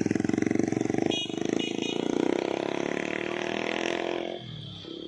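Vehicle engine running close by as it climbs the hill, a rough rapid pulsing that drops away sharply about four seconds in.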